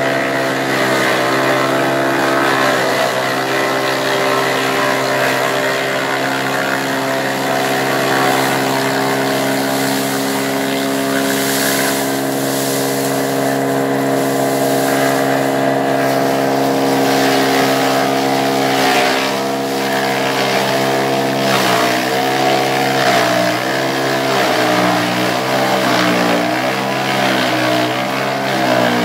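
PP-47 forage chopper running steadily while sugarcane and napier grass stalks are fed through it. In the last several seconds its pitch dips again and again as stalks load the blades.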